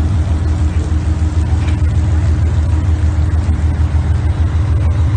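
Fishing boat's engine running steadily, a deep, even drone with a constant hum.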